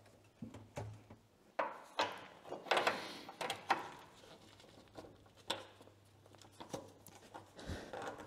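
Hydraulic hoses and quick couplers on a small loader being handled and pushed together: a string of short metallic clicks, knocks and rattles, busiest about two to four seconds in, over a faint steady low hum.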